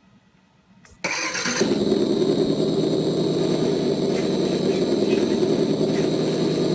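An RC monster truck's engine-sound module playing a simulated engine start about a second in, then a steady engine running sound.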